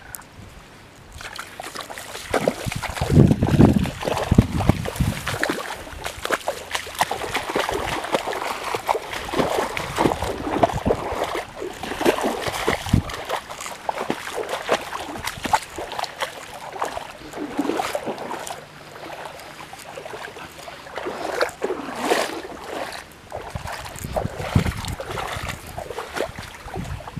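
Dense, irregular rustling and crackling of tall reeds and grass brushing against someone pushing through them, with occasional low wind buffets on the microphone.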